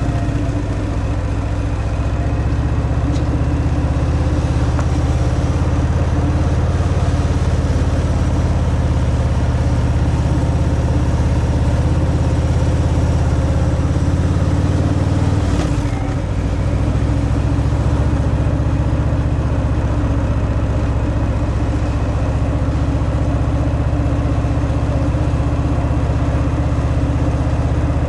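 Harley-Davidson Fat Boy's Milwaukee-Eight 114 V-twin running under way through its stock exhaust, holding a steady pace. About halfway through, the engine note drops briefly and then picks back up.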